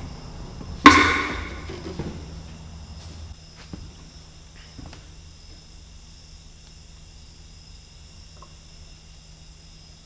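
A sharp metallic clank of hand tools about a second in, ringing briefly as it dies away, then a few faint clicks of needle-nose pliers working in the dozer's joystick housing, over a faint steady hum and high whine.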